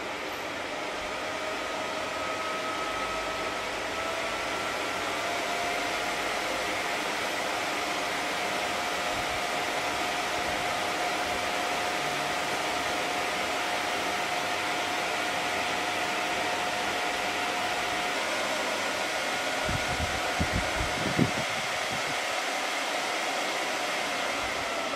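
Dyson tower air purifier fan blowing steadily: a rush of air with a faint motor whine whose pitch steps up slightly about five seconds in. A few short low thumps come about twenty seconds in.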